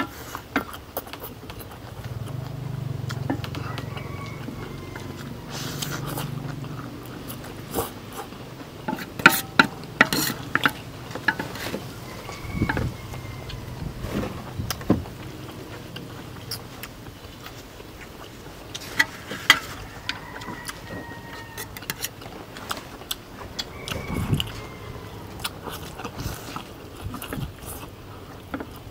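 People eating stir-fried rice noodles quickly: chewing, with many sharp clicks and clinks of utensils against plates scattered throughout.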